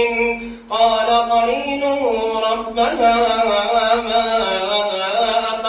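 A man reciting the Quran in slow, melodic tartil style, drawing out long sung syllables that glide in pitch. There is a brief breath pause about half a second in.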